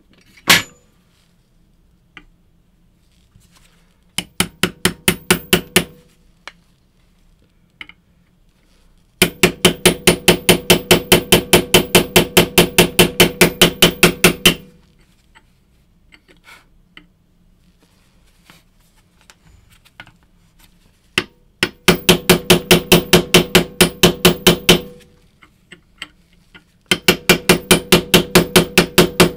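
Small hammer tapping a steel pin punch to drive roll pins into a rifle's adjustable gas block. The taps come in several quick, even runs of about seven a second, each tap with a short metallic ring.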